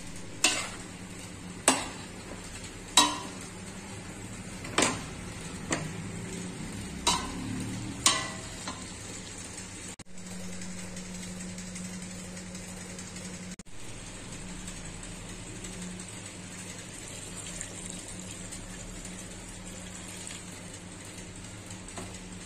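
A steel spoon stirring chicken curry in a stainless steel pot, knocking against the pot about seven times in the first eight seconds. After that only a steady low hiss and hum remains.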